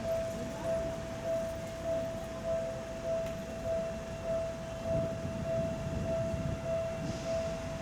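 Japanese railway level crossing's electronic warning bell ringing in a steady, even 'kan-kan' rhythm, about one and a half strikes a second, signalling that a train is coming. From about five seconds in, the low rumble of the approaching Seibu Tamako Line train grows under the bell.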